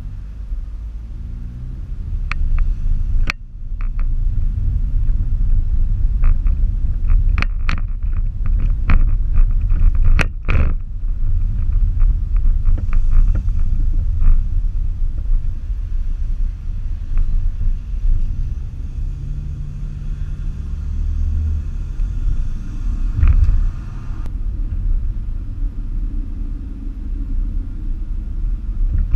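Low rumble of a car driving in stop-and-go traffic, engine and road noise heard from inside the cabin, with a few sharp clicks scattered through the first ten seconds.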